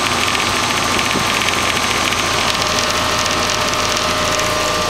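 Trane XL15i 4-ton heat pump outdoor unit running steadily in cooling mode, its compressor and condenser fan giving an even whirr with a steady high tone. A second, lower tone comes in about halfway through.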